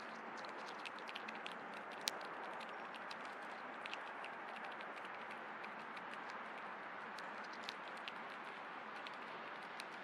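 Outdoor backyard ambience: a steady hiss with many small, irregular clicks and ticks, one sharper click about two seconds in.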